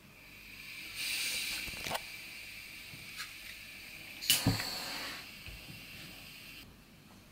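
Gas hissing from a small gas burner as it is turned on, with a couple of light clicks, then a sharp click about four seconds in as a lighter is used to ignite it. The hiss then fades away.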